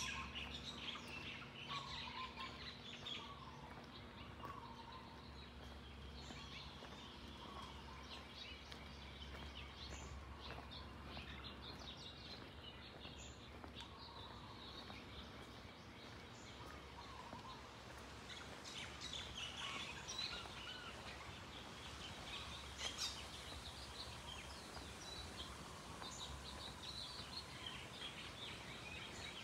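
Faint outdoor ambience with several birds chirping and calling: short chirps scattered throughout, over a low steady rumble.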